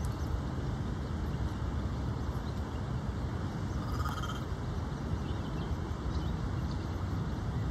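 Steady low rumble of distant freeway traffic, with one short bird call about four seconds in.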